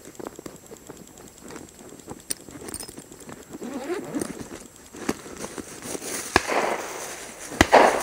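Rustling and handling noise that grows louder toward the end, broken by a few sharp clicks or cracks, the loudest near the end.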